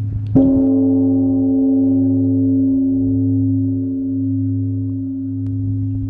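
A large bronze Korean bell is struck with its hanging wooden log about a third of a second in. It then rings on with a steady tone over a low hum that swells and fades in slow waves: the beating (maegnori) that Korean bells are known for.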